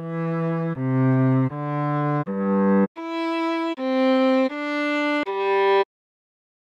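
Cello playing a melody in sustained bowed notes, roughly one note every three-quarters of a second, with a lower second line under the first few notes. The phrase ends a little under six seconds in.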